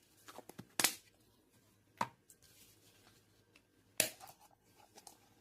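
A teaspoon knocking against a container while yeast is measured out: three sharp taps, at about one, two and four seconds in, with lighter clicks and rustling between them.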